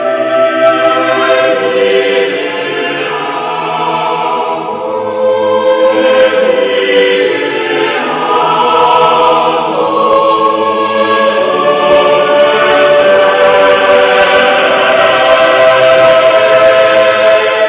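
Choir singing slow, long-held chords, softening briefly a few seconds in and then swelling again.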